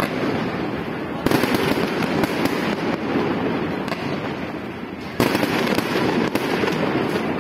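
Fireworks going off in a continuous crackle. Two sharp loud bangs come about a second in and about five seconds in, with scattered smaller pops between them.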